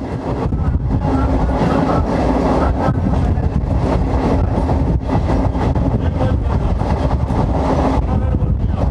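Electric multiple-unit (EMU) local train running on the line, heard from its open doorway: a steady noise of wheels on rail, with many rapid clacks over the track.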